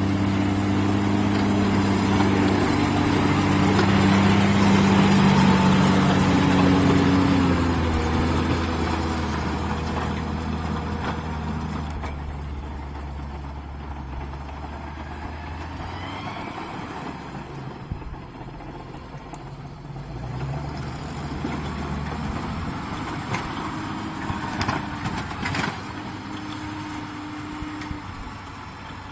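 Case Maxxum 140 tractor engine running with a steady note, loud at first and then fading away over the middle of the clip, staying quieter with a few light knocks near the end.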